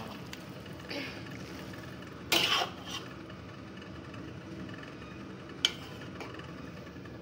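Cookware knocking against a wok: a light clink about a second in, a louder clatter of a metal lid being set on the wok about two and a half seconds in, and a single sharp click near the end, over a steady low background hiss.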